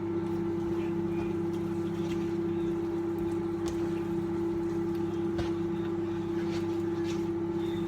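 Steady electrical hum of a running kitchen appliance, one strong low tone over a lower drone, with a few light clicks of utensils.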